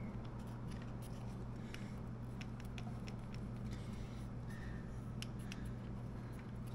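Faint scattered light clicks and taps of hands working at a motorcycle's front sprocket, over a steady low hum.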